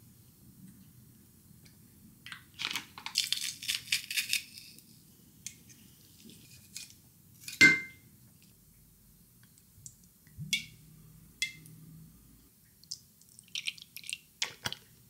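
A wooden spoon scraping and clinking against a glass measuring jug as thick Greek yogurt is scooped in, with one sharp knock about halfway through and a few light clicks and taps near the end.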